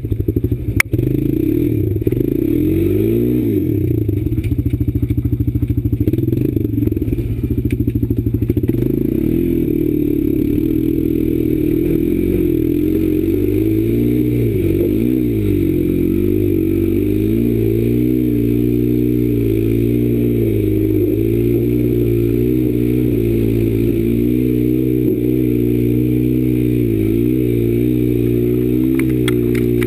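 Quad bike engine, heard close from the rider's position, running with the revs rising and falling repeatedly, then held fairly steady for the second half. A sharp knock about a second in.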